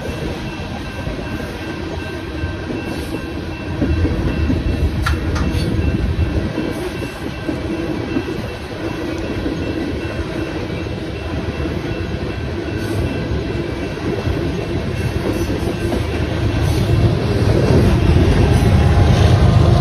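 Loaded coal hopper cars of a freight train rolling past, a steady rumble with wheels clattering over the rails. From about three seconds before the end, the low engine drone of an approaching diesel locomotive grows louder.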